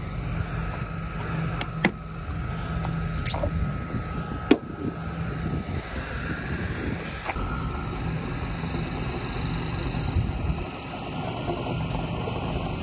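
Sharp clicks and knocks of a car's fuel filler door, gas cap and plastic gas-can spout being handled, about three in the first five seconds, over a steady low rumble.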